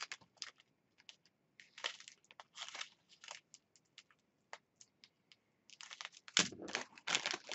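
Small plastic bags of diamond painting beads being handled, crinkling and clicking in short, scattered rustles. A louder run of rustling comes near the end.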